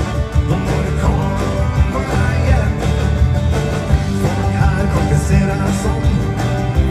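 A live dance band playing an upbeat country-rock number on drums, electric guitars, bass and keyboards, heard from the audience of a large arena hall.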